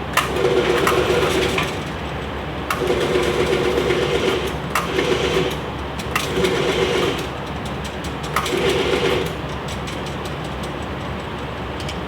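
A small electric motor whirring in five short bursts of about one to two seconds each, with a click at the start of each burst.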